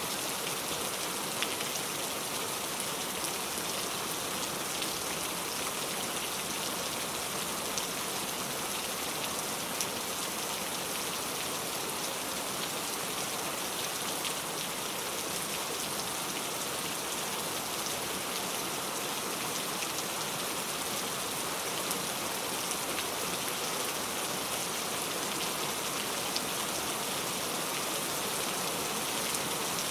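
Heavy rain falling steadily, a dense even hiss with scattered sharper drops hitting a surface.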